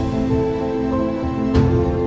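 Background music: held instrumental notes that change pitch, with a single percussive hit about one and a half seconds in.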